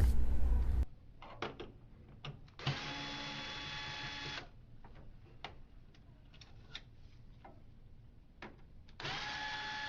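Electric screwdriver running for about two seconds with a steady whine, backing out a screw from the printer's top cover, then small clicks and taps of handling, and the screwdriver running again near the end for the second screw.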